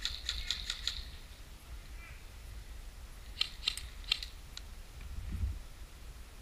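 Airsoft guns firing: a quick burst of shots in the first second, then a few single shots spaced about a third of a second apart around the middle.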